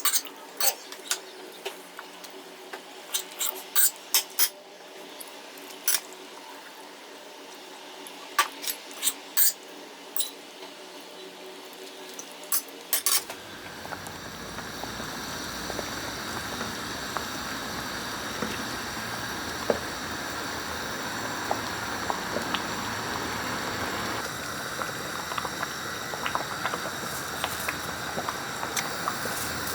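Kitchen clatter: sharp clinks and knocks of dishes and utensils for about the first thirteen seconds, then a steady rushing noise takes over.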